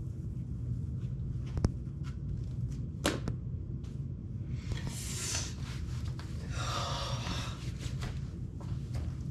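Small-room ambience with a steady low hum. A sharp click comes about one and a half seconds in and a lighter click at about three seconds. Two brief rustling whooshes follow, around five and seven seconds in, from someone handling things and moving about.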